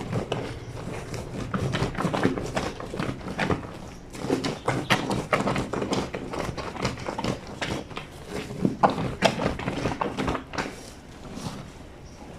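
Wet blanket being scrubbed and worked by hand on the ribbed washboard of a granite lavadero: an irregular run of squelches, slaps and knocks, easing off near the end.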